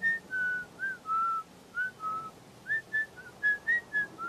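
A person whistling a tune: a string of short notes that step up and down, with small gaps between them.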